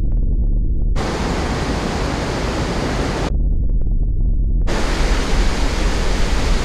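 Loud rushing noise of crashing water, with a heavy low rumble. It switches abruptly between a muffled rumble and a full hiss: the hiss cuts in about a second in, drops out for over a second in the middle, and returns.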